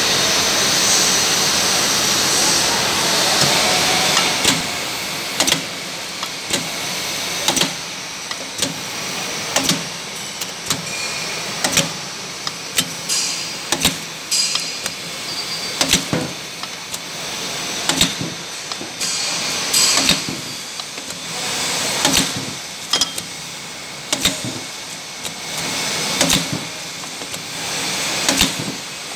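Automatic soap bar wrapping machine running: a steady mechanical whir and hiss, with a sharp clack about once a second as the wrapping head cycles.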